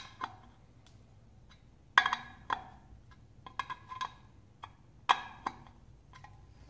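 Metal hardware of a bolt-on wheel collar kit clinking and clicking against a steel truck wheel as it is tightened by hand. A scattering of sharp clinks with a short ring, the loudest about two seconds in and about five seconds in.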